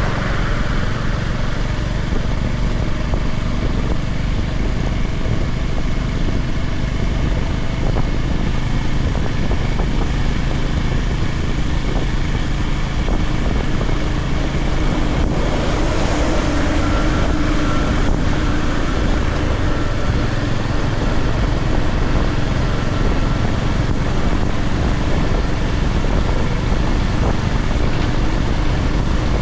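Honda GB350's air-cooled single-cylinder engine running steadily under way, with wind rushing over the microphone. A brief rush of hiss comes about halfway through.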